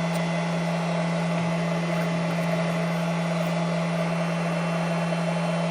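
A steady electrical hum with one constant low tone over an even hiss, unchanging throughout.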